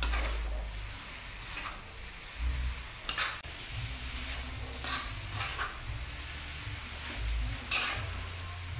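Javanese fried noodles sizzling in a hot wok as they are stir-fried with a long-handled spatula, which scrapes and knocks against the pan now and then.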